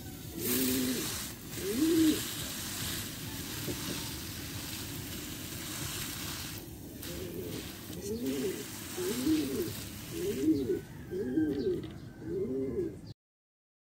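A dove cooing, a series of rising-and-falling coos about once a second near the start and again through the second half. Under it runs a steady hiss, likely water splashing onto soil-filled seedling bags and the concrete, which stops about three-quarters of the way in.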